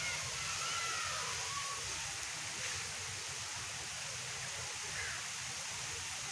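Steady rain falling, an even hiss. A few faint short gliding calls sound near the start.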